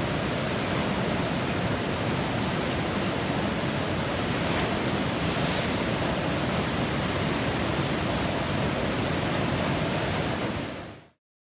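Whitewater river rapids, a steady rushing roar of churning water, fading out quickly near the end.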